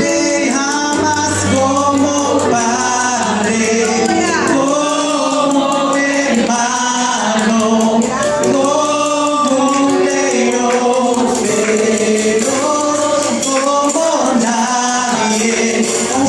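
Live worship song: a man sings lead into a handheld microphone through PA speakers over music, with other voices joining and a steady high jingling percussion.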